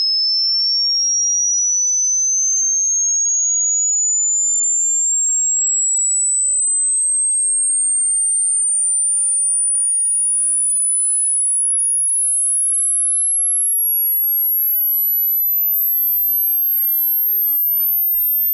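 High-pitched pure sine test tone sweeping slowly and steadily upward in pitch at a constant level, climbing toward the top of the range of human hearing: a hearing-age test tone.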